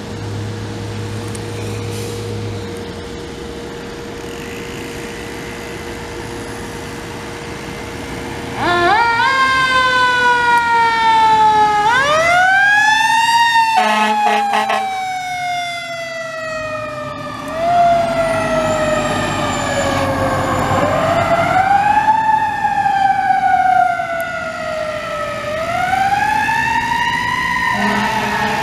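Fire engine siren starting about a third of the way in and wailing up and down, each rise quick and each fall slow, with a brief choppy, rapid stretch near the middle. Before it starts there is only a steady, lower background.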